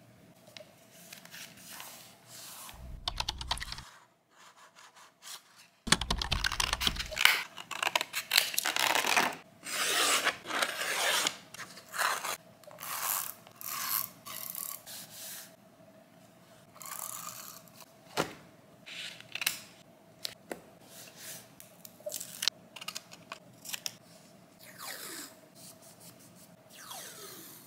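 Paper being torn and rustled by hand in irregular bursts, with a few sharp clicks, over a faint steady hum.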